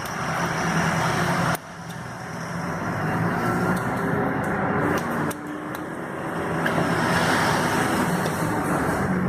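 Chevrolet Corsa Classic starter motor run straight off the battery for a test, spinning with a loud whir. It cuts out suddenly about a second and a half in and again about five seconds in, building back up after each.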